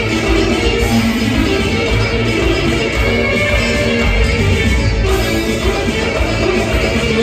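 Albanian wedding band music: a dance song with a steady, even beat.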